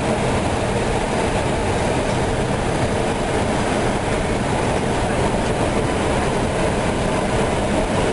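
Steady rushing cockpit noise of an Airbus A319 descending on approach to land: airflow over the nose and engine sound heard from inside the flight deck, even and unbroken.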